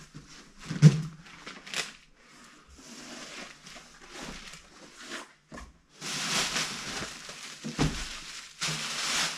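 Rustling and crinkling handling noise with scattered light knocks and a sharp thump about a second in. Two longer stretches of louder rustling come in the last few seconds.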